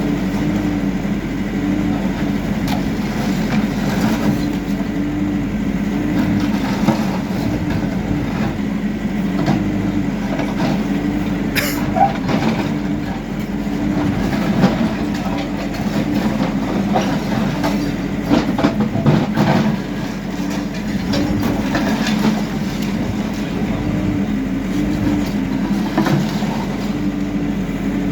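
Backhoe loader's diesel engine running steadily under load, with scattered knocks and clatter of rubble being worked and one sharp crack about twelve seconds in.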